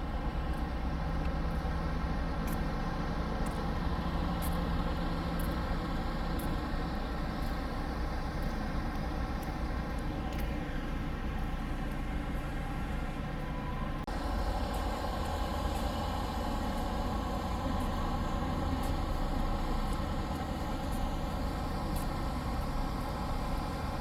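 Tour bus engine running steadily with a low rumble, its sound shifting slightly about halfway through.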